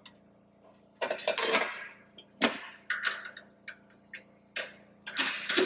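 Scattered metal clanks and clicks as the belt grinder's metal top cover is fitted back on and a hand tool is taken off a pegboard. After a quiet first second come a few knocks, the sharpest about two and a half seconds in, and denser clattering near the end.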